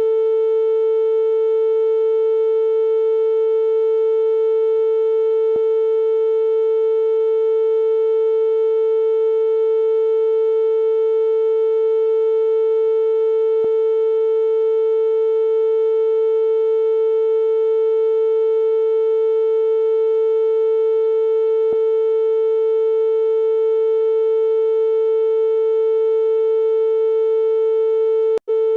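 Synthesised steady tone (the 'ear unclogging frequency') held on one unchanging pitch with a few faint overtones, cutting out for an instant near the end.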